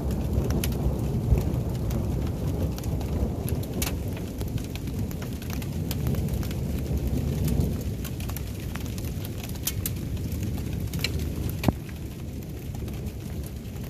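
Thunderstorm: rain falling with a steady low rumble under it and scattered sharp ticks of drops hitting a surface, one louder tick near the end.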